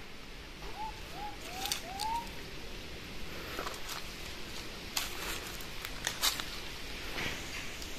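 Puppy whimpering: four short rising squeaks in quick succession about a second in, followed by scattered faint clicks.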